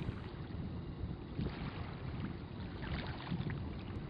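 Steady rushing of water and wind, with a few faint sharper sounds over it.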